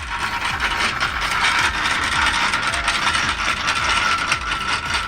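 Homemade mechanical wood splitter running with a dense, fast metallic clatter like a ratchet, over a steady ringing tone and a low repeating pulse.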